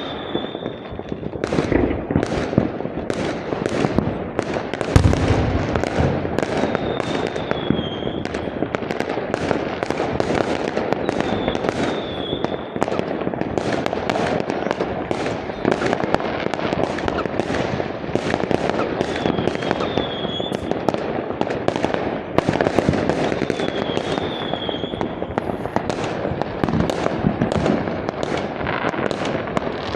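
Aerial fireworks bursting without pause: a dense, continuous barrage of bangs and crackle, with a heavier low boom about five seconds in and short high whistles now and then.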